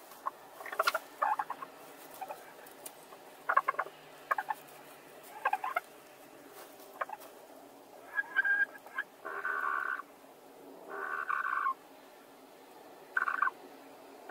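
Laying hens vocalising in a shared nest box. Short clucks come in the first half, then several drawn-out calls about a second long, one every second or two, in the second half.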